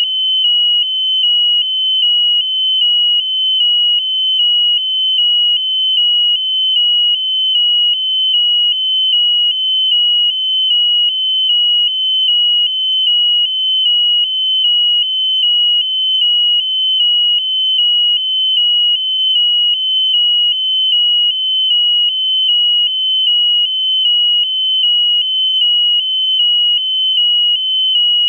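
Electronic buzzer sounding a steady high-pitched tone, broken by a brief dip about once a second.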